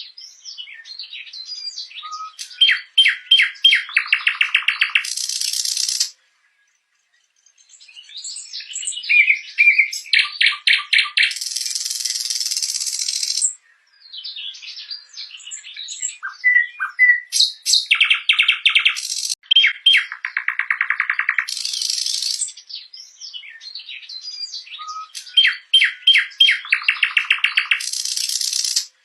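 Nightingale singing in separate phrases: fast runs of repeated notes, rattling trills, buzzy bursts and short whistles, with brief pauses between phrases.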